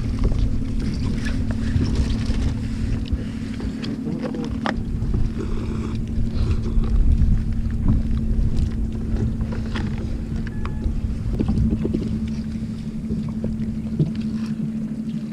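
A fishing boat's engine running with a steady hum, wind buffeting the microphone, and scattered light clicks and rustles of plastic food containers and wrap being handled.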